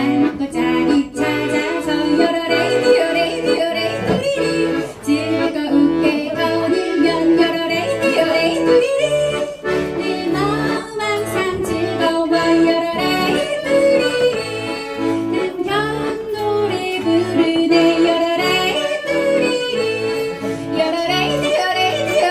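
Yodel song: a voice yodelling a melody over accordion accompaniment with a bouncing bass line.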